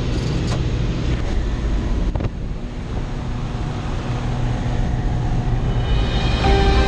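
Steady drone of a light single-engine aircraft's engine heard from inside the cabin, mixed with the rush of wind through the open jump door. There is a brief click about two seconds in, after which it is a little quieter, and background music starts near the end.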